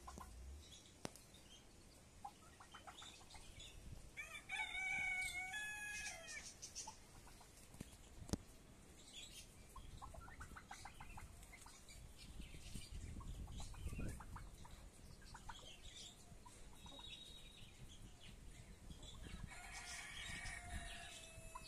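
Domestic fowl calling in a pen: a long call with several stacked pitches about four seconds in and another near the end that slides down, with softer clucking between. A single sharp click about eight seconds in.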